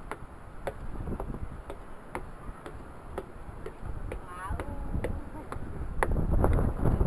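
Footsteps climbing wooden stairs, about two steps a second, each a sharp knock on the treads, with wind rumbling on the microphone.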